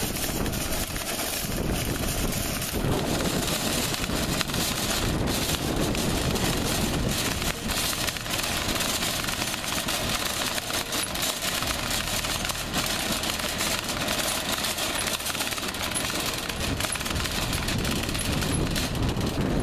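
Metal wire shopping cart being pushed across parking-lot asphalt, its wheels and basket rattling in a continuous, dense rattle.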